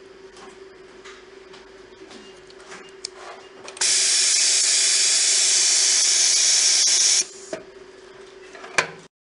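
A hot bar soldering machine lets out a loud, even hiss of compressed air for about three and a half seconds, starting and stopping sharply, over the steady hum of its cooling fans. Light clicks of small parts being handled come before it, and a sharp click of the machine's sliding work tray comes near the end.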